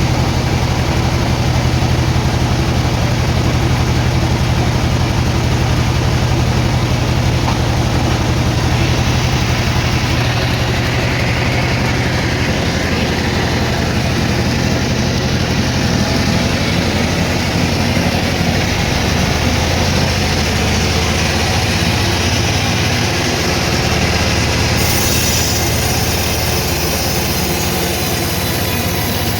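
Sawmill machinery running steadily, a loud low engine hum under dense mechanical noise, changing in tone partway through and again near the end.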